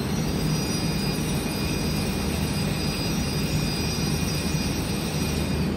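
Steady machinery hum and noise of a running production machine, with faint high-pitched whines running through it that drop out near the end.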